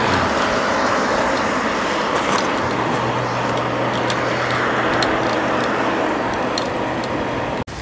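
Strong wind rushing steadily past a cyclist's microphone while riding into gusts, with a low steady hum joining about three seconds in and fading out a few seconds later.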